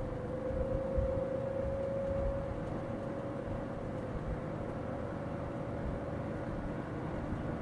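Berns Air King PR20P 20-inch two-speed box fan running: a single motor hum over the low rushing of moving air. The hum drifts slightly and fades after about six seconds.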